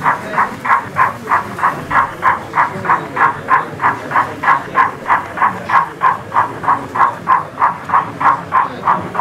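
Model steam locomotive sound decoder chuffing at a steady rate of about three beats a second, each chuff a short hissing puff.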